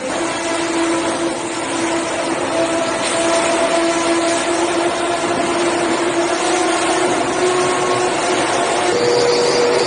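Loud, steady machinery noise with several humming tones that shift in pitch, and a new hum tone coming in near the end.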